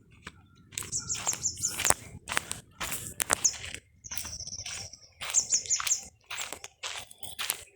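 Several birds chirping and calling in the early morning: many short, sharp, high chirps, with a quick run of four or five high notes that comes back three times and a brief high trill in the middle.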